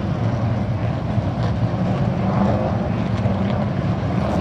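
A field of late model stock cars running laps around an asphalt oval, their engines merging into one steady drone.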